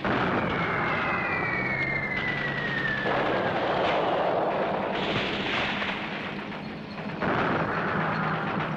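Film battle sound effects: a dense roar of explosions and gunfire that starts suddenly, with a high whistle falling slowly in pitch over the first three seconds. A fresh blast comes about seven seconds in.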